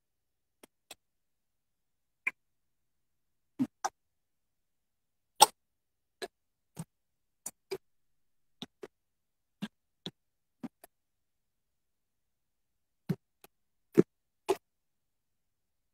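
Scattered sharp clicks and taps at irregular intervals, about twenty of them, with dead silence in between. The strongest come about five seconds in and again near fourteen seconds.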